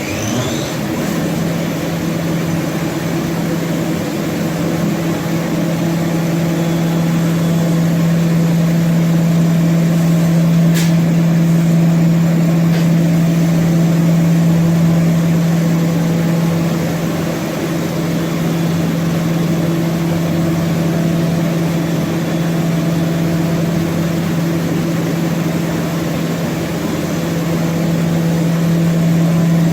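HOMAG BOF 41/K CNC machining center running with a steady hum, plus a brief sharp click about eleven seconds in.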